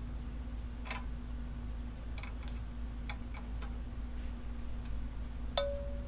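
Light, irregular metallic clicks and taps as steel valve keepers and a tool are worked onto a valve stem and retainer in an aluminium Ecotec L61 cylinder head, with the spring held down by a lever-type valve spring compressor. Near the end one brighter metal tap rings briefly.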